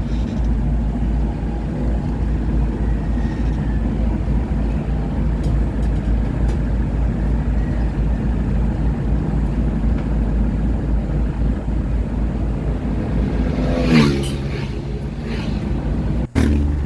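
Steady rumble of a vehicle's engine and road noise while driving along at speed, with a short, louder pitched sound about fourteen seconds in.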